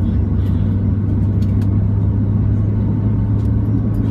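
Steady low rumble of cabin noise inside a Boeing 737-700, with a few faint clicks.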